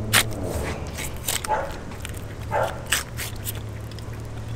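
A filleting knife working along a swordfish's backbone, with scattered sharp clicks over a steady low hum. Two short yelps come about a second and a half and two and a half seconds in.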